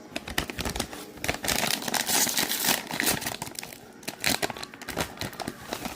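A Takis Blue Heat chip bag crinkling and rustling as it is handled and opened, in dense, irregular crackles.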